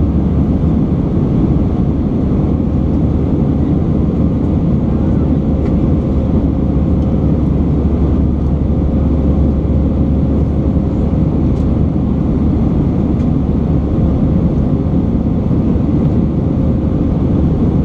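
Cabin noise inside a British Airways Airbus A319 in the climb after takeoff, heard from a seat over the wing: a steady, deep drone of the jet engines and rushing air, with a thin steady hum through it.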